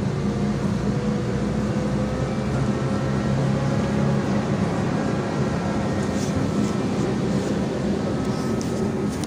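Cabin sound of a BKM 32102 trolleybus under way. The electric traction drive whines in a thin tone that rises slowly as the vehicle gathers speed, over a steady rumble of tyres and body.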